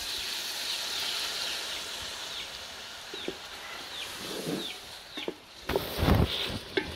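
Masala and chicken feet sizzling in hot oil in a cooking pot after a splash of water, with a few knocks of stirring. A bird chirps over and over in the background, and there is a loud low thump about six seconds in.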